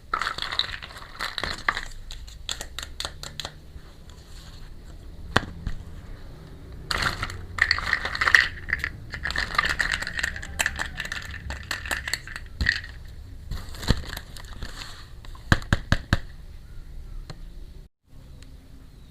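Small plastic toy pieces and their packaging being handled: scattered clicks and taps, with stretches of crinkling plastic, busiest in the middle.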